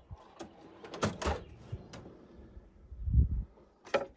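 Clunks and clicks of a metal slide-out drawer and gear being handled, with a heavier thud about three seconds in and a sharp click near the end.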